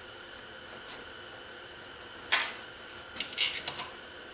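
A few sharp metallic clicks and clinks of small steel parts, M6 bolts and washers, being handled and set into a scooter engine's aluminium clutch housing. There is one clink about two seconds in and a quick cluster near the end, over a faint steady hum.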